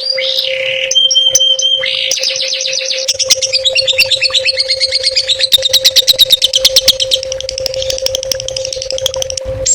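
Songbird song from a masteran training recording: a fast, varied string of chirps and trills, building to a rapid run of repeated sharp notes about ten a second in the middle, then a buzzy trill near the end. A steady low hum runs underneath.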